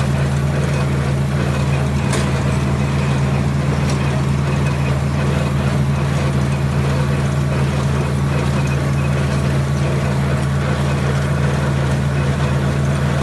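John Deere 4020 tractor engine running steadily at working speed while it pulls and powers a hay baler, with one short click about two seconds in.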